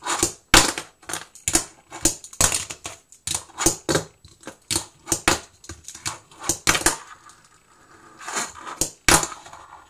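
Berlinwood green camo fingerboard clacking and rolling on a tabletop under the fingers: an irregular run of sharp clacks and clicks, easing off about seven seconds in, then a few more clacks near the end.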